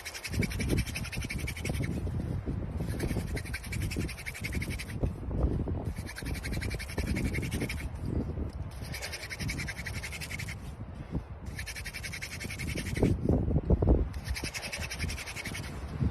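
Hand drill friction fire: a wooden spindle twisted between the palms, grinding and squeaking in the fireboard's notch in repeated strokes, each lasting a second or two and coming every two to three seconds, over rough rubbing and handling noise.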